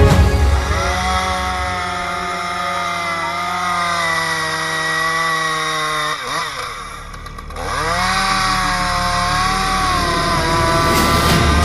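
Chainsaw engine running at high revs, dropping briefly toward idle about six seconds in, then revving back up.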